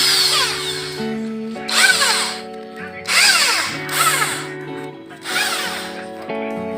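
Power drill spinning up and down in repeated short bursts, about one a second, typical of power-brushing hard carbon off engine parts. Background music with sustained chords changing underneath.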